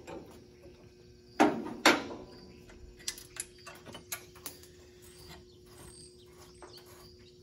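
Two sharp metallic knocks about half a second apart, then scattered light clicks and taps: tools and parts being handled while an air-conditioning hose and its plate are taken off a compressor. A faint steady hum sits underneath.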